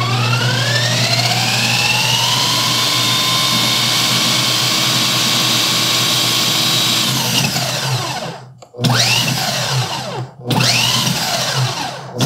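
Cuisinart Complete Chef cooking food processor's motor and chopping blade spinning up with a rising whine and running steadily, chopping toast into crumbs. It winds down about eight seconds in, then runs in two short bursts of a second or so each.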